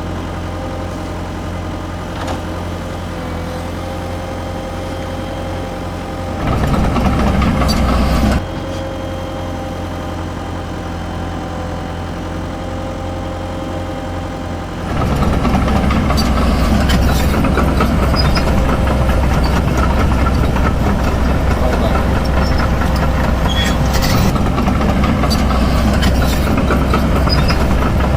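Huina radio-controlled model excavators running with a steady engine-like hum. It gets louder and rougher for about two seconds some six seconds in, and again from about fifteen seconds on as the machines work.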